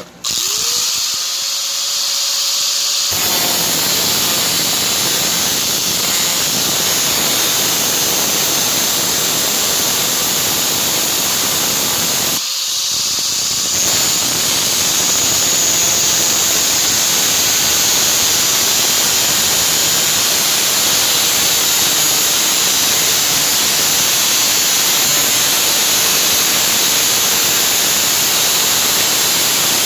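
Angle grinder spinning up, then its abrasive disc grinding into a rusted nut and bolt with a loud, steady hiss and squeal. About 12 seconds in the disc comes off the metal briefly, the grinder's free-running whine shows through, and the grinding resumes.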